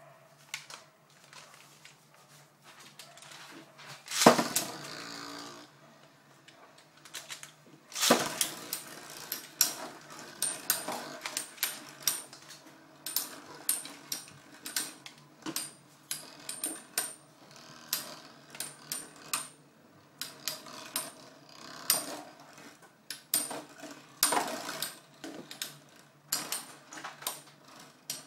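Two Metal Fight Beyblades, Basalt Horogium 145WD and Killer Beafowl UW145EWD, launched into a clear plastic stadium, with a loud launch about four seconds in and another about eight seconds in. They spin and clash, giving repeated sharp metal clinks about once or twice a second as the tops knock against each other.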